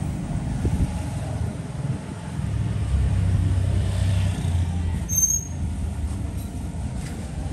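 Road traffic going by: a heavy vehicle's engine rumbles low and steady, loudest in the middle, with a brief high squeal about five seconds in.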